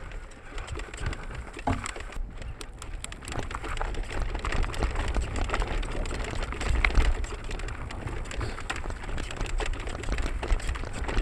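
Mountain bike riding down a rough, rocky trail: tyres crunching and clattering over loose stones, with dense irregular knocks and rattles from the bike and a steady low wind rumble on the microphone.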